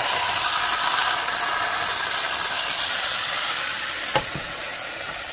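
Oil sizzling steadily in a hot skillet where a seitan roast is being crisped, easing off a little toward the end. A single sharp click about four seconds in.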